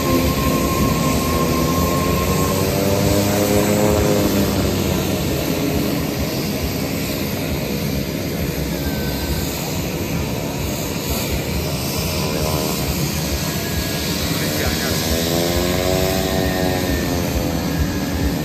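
Turboprop engine and propeller of a KT-1B Woong Bee trainer running on the ground, a steady drone whose pitch rises and falls twice: about two seconds in and again near the end.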